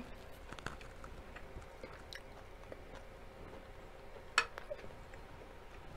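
Chewing a mouthful of fried rice: soft wet mouth sounds with small clicks, and one sharper click about four seconds in.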